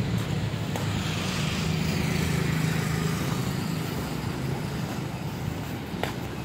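Motor vehicle engine humming steadily under road noise, with a rushing swell from about one to three seconds in.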